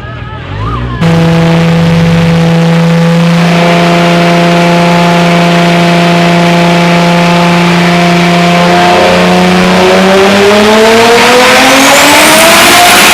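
Drag car's engine held loud at steady high revs, then rising smoothly in pitch as it accelerates near the end.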